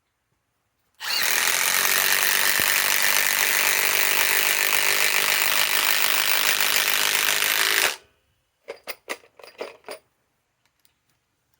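Cordless compact impact wrench hammering steadily for about seven seconds as it drives a 4-inch timber lock screw into wood, then stopping abruptly. A few short knocks follow.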